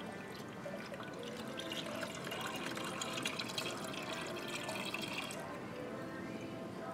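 Premixed 50/50 antifreeze coolant pouring from a plastic jug into an engine's coolant reservoir: a steady stream of liquid running into the tank.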